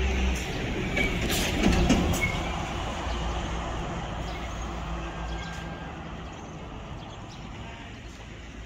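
Road traffic with a truck's engine running as it passes, loudest about two seconds in, then slowly fading.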